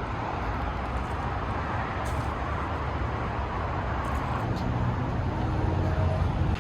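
Car driving: steady road noise with a low rumble, growing slightly louder near the end.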